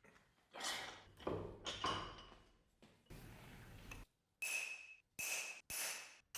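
A steel part is scraped, then struck several times about two strikes a second, each strike ringing with the same clear metallic tone.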